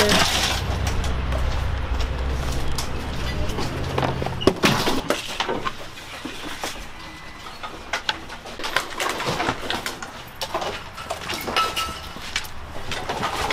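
Household junk and debris being handled and dumped: scattered knocks, clatters and scrapes of wood, metal and plastic. A steady low hum runs under the first few seconds.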